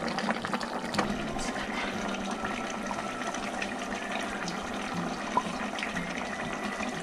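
Korean braised chicken sauce bubbling steadily as it comes to the boil in an electric pressure cooker's pot, with a wooden spatula stirring through it at the start. A sharp click sounds about a second in and another after five seconds.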